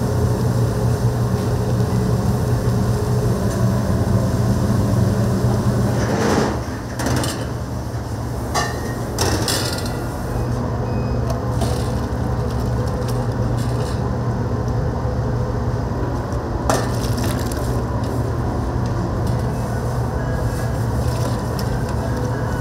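Commercial kitchen noise: a loud, steady low hum of kitchen equipment, with a few sharp knocks and clatters, twice near the middle and once later on.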